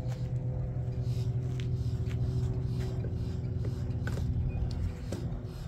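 An engine running steadily, a low even hum. A few light clicks and taps from fishing rods and gear being handled sit over it.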